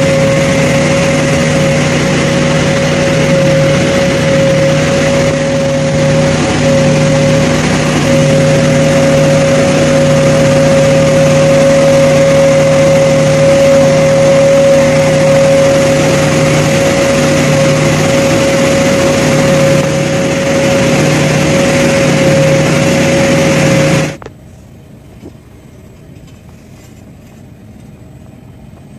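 Heavy industrial machinery running loud and steady: a constant hum and rush of noise with a steady whine on top. It cuts off suddenly about 24 seconds in, leaving only faint background noise.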